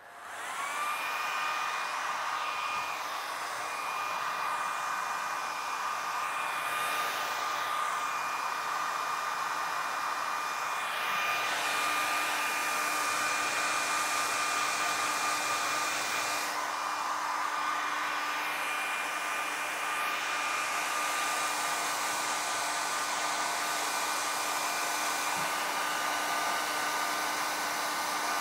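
Hair dryer switched on and running steadily, a whining airy hiss that comes up to speed in about the first second. It is blowing over leather to dry freshly dabbed leather paint.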